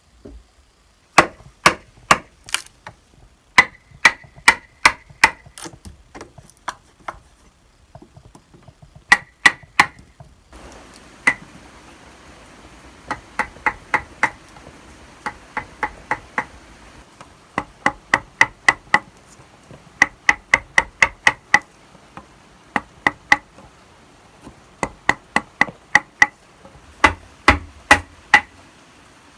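Hammer blows in quick bursts of four to six strokes, many ringing briefly at one pitch, as when nails are driven into wood.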